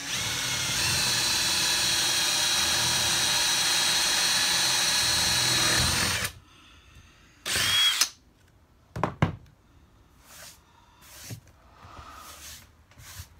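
Power drill with a Forstner bit boring a hole through a click-lock flooring plank, running steadily with a high whine for about six seconds and then stopping. A shorter loud burst follows about a second and a half later, then a few light knocks as the plank is handled.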